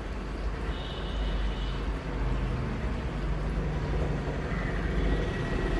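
Washing machine draining its wash water at the start of the rinse: a steady low rumbling, rushing noise.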